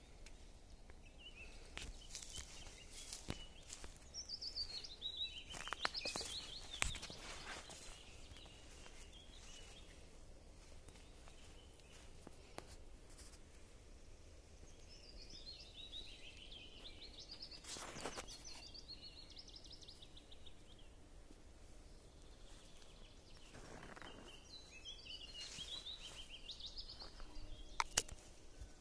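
A songbird singing a warbling, chirpy phrase three times, each a few seconds long and about ten seconds apart, over quiet forest background. Scattered light crackles of footsteps on the needle-strewn forest floor.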